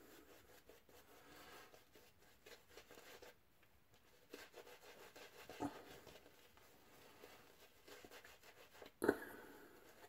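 Faint soft rubbing of a synthetic 24 mm tuxedo-knot shaving brush building lather on a bearded face, with a brief knock about nine seconds in.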